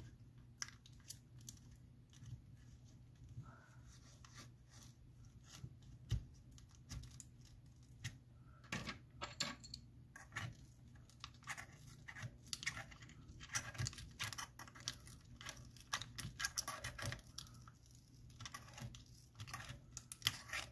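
A pry tool scraping under an iPhone 8 Plus battery as its brittle adhesive tears and cracks loose: faint, irregular scratches and small cracks, coming more thickly in the second half.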